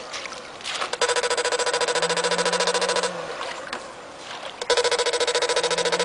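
Electric fish-shocking machine buzzing as current is switched into the water through the pole, to stun fish: two bursts of a harsh, rapidly pulsing buzz of about two seconds each, the first starting about a second in and the second near the end.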